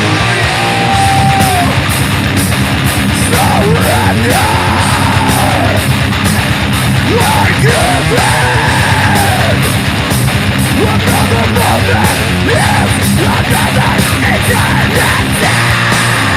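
Heavy metal: a distorted electric guitar from an EVH Wolfgang Standard with a Wolfgang humbucker, played over a metal backing track with a driving drum beat and sung and yelled vocals.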